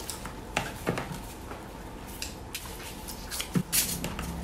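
Small handling noises as a boiled bamboo shoot is worked by hand at the table: a few soft clicks and rustles, with two louder knocks about three and a half seconds in.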